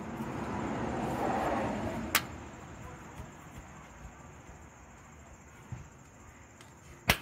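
The locking pin being pulled from the timing-belt tensioner on a Honda 3.5L V6: a scraping, rustling handling noise for a couple of seconds with a sharp click about two seconds in, then a louder sharp click near the end. Pulling the pin releases the tensioner to put tension on the new timing belt.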